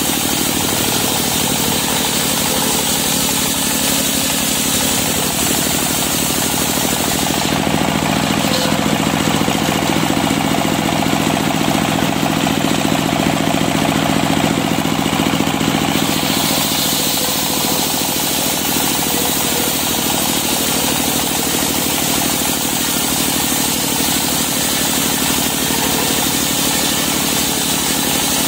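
Circular saw bench ripping planks of African wood (kayu afrika) lengthwise, with its drive running steadily. The high cutting hiss drops away for several seconds in the middle while the blade spins empty between planks, then returns as the next plank is fed through.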